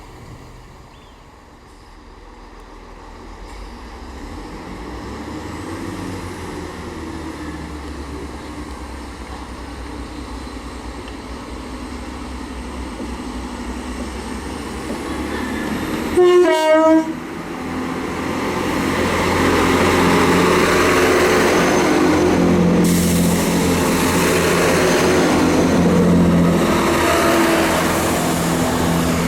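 Great Western Railway Class 166 Networker Turbo diesel multiple unit approaching and growing steadily louder, sounding a short two-note horn about sixteen seconds in, then its diesel engines running loudly as it comes past.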